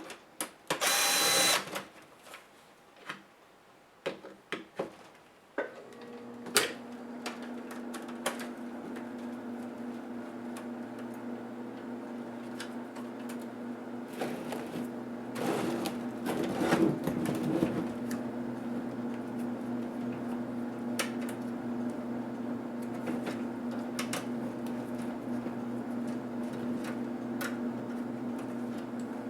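Small clicks and knocks from laptop parts and tools being handled during disassembly, with a short motor whir about a second in. About six seconds in, a steady electric hum starts and keeps running.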